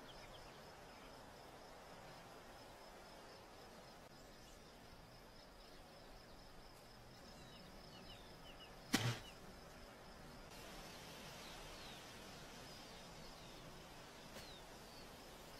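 Faint open-countryside ambience: scattered short chirps of small birds over a thin steady high tone and a soft hiss, broken once about nine seconds in by a single sharp click.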